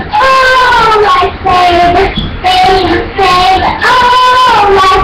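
A high voice singing long, held notes that slide up and down in pitch, with short breaks between phrases.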